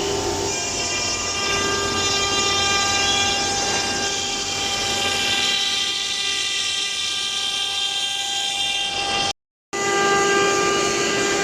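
CNC router running while it cuts a panel: a steady whine of several held tones over a rushing extraction-like noise. The sound drops out for a moment about nine and a half seconds in, then carries on the same.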